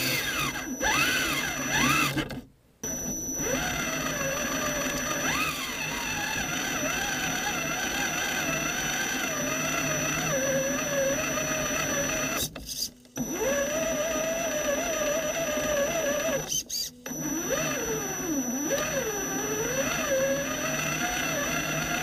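Axial SCX10 Honcho RC rock crawler's electric motor and gearbox whining under throttle, heard from a camera inside the body; the pitch rises and falls with the throttle, and the whine stops briefly three times when the throttle is released.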